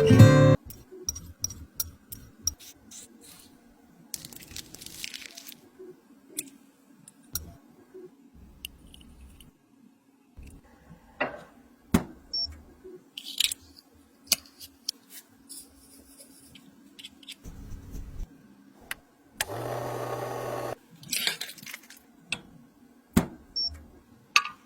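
Guitar music cuts off just after the start. Then come small handling sounds of makeup being worked: scattered light clicks and taps with soft crunching and scraping, and about a second of steady hiss shortly before 20 s in.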